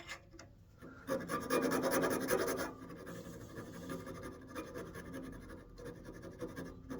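A hand rasp scraping a decorative notch into a walnut rosette: a loud stretch of rasping starting about a second in and lasting under two seconds, then lighter scraping.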